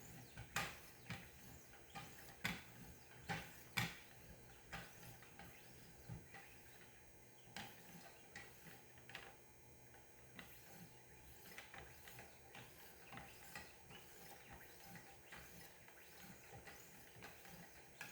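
Faint, irregular clicks and light taps from the strop arms of a guided Wicked Edge WE50 sharpener as a knife edge is stropped on leather strops. The few louder clicks come in the first four seconds, then softer ones follow.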